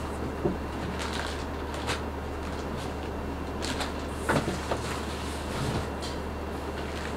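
Packaging being handled in an opened cardboard box: scattered rustles and crinkles of wrapping and cardboard, the strongest about four seconds in, over a steady low hum.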